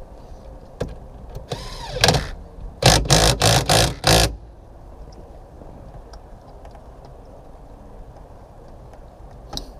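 Cordless impact gun tightening the steering wheel's centre nut: one run starting with a rising whine, then five short trigger bursts about three a second.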